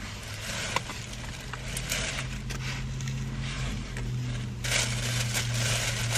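Clothing and its packaging being handled, rustling and crinkling, louder near the end, over a steady low engine hum.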